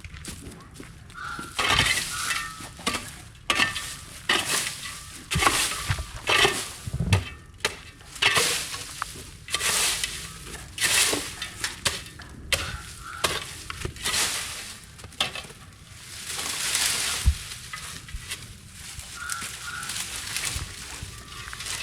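Dry, dead cowpea stalks and leaves rustling and crunching as they are swept and gathered by hand, in irregular swishes about once a second.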